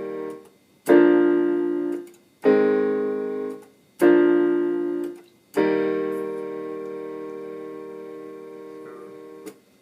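Keyboard on a piano sound playing left-hand backing chords: four chords about a second and a half apart, the last held for about four seconds before it is released.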